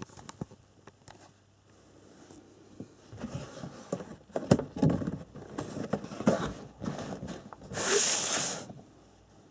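Cardboard kit box being handled and its lid worked off the base: scattered clicks, knocks and scrapes, then a louder sliding hiss of cardboard rubbing on cardboard, about a second long, near the end.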